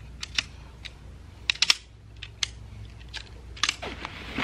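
Metal poles of an Ascend lightweight camping cot clicking and clacking as they are handled and fitted together, about a dozen irregular sharp clicks, with a brief rustle of the cot's nylon fabric near the end.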